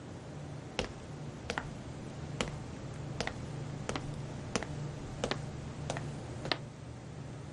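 Slow, measured footsteps on a hard floor, about ten steps, each a sharp click, over a low steady hum.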